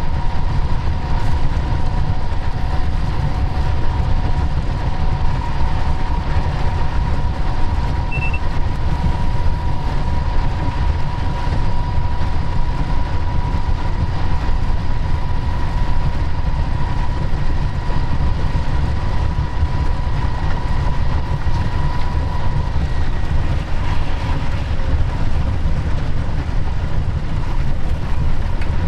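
Steady running noise inside a locomotive cab on the move: a loud low rumble of the engine and wheels on the track, with a thin steady whine that fades out near the end.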